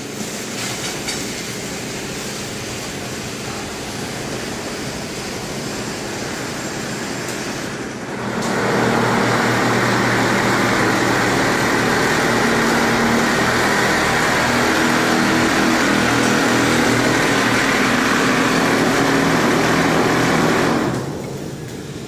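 Mast-mounted automatic wall-plastering machine running: a steady mechanical drone with a motor hum in it. It grows much louder about eight seconds in and drops back again about a second before the end.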